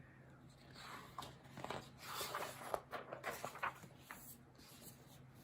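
Soft paper rustling and light taps of a picture book's pages being turned, a quick cluster of small sounds between about one and four seconds in.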